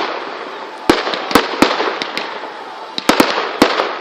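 Fireworks exploding: a string of sharp bangs, about seven in all, bunching together in the last second, over a continuous crackling rumble of further bursts. The onlooker takes this for the grand finale.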